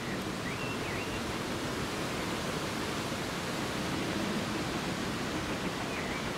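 Manning Wardle L class saddle-tank steam locomotive working slowly, heard as a steady hiss of escaping steam with no distinct exhaust beats.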